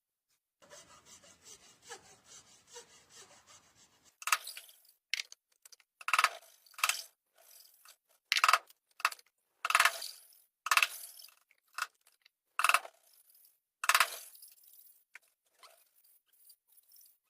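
A hand tool scraping across wood in strokes, light and quick at first, then about ten harder strokes roughly a second apart.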